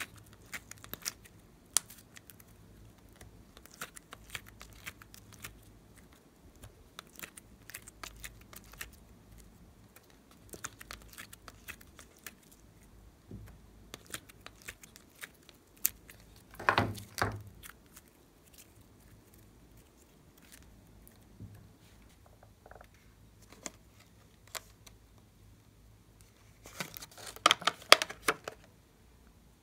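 Sparse small clicks and taps of fingers pressing clay cubes out of a plastic ice-cube tray, with a short, louder crinkle about halfway through. Near the end, a denser run of crinkling and clicking as a clear plastic blister pack of toy popsicles is handled.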